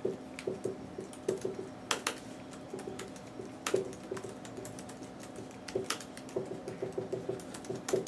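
Marker writing on a whiteboard: a quick, irregular run of short squeaks and taps as each stroke is drawn, with a few sharper clicks now and then.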